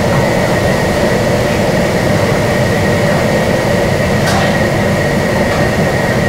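Steady noise of a commercial gas wok burner running under a large wok of crayfish boiling in broth, with a thin steady whine over it.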